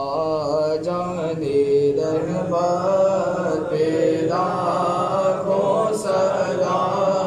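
A young man's solo voice chanting Islamic prayer recitation into a handheld microphone, in long melodic notes that rise and fall.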